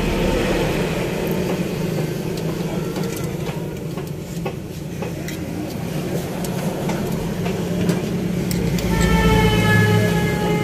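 Steady motor-vehicle engine noise with scattered clicks and knocks, joined by a steady pitched tone with overtones about nine seconds in.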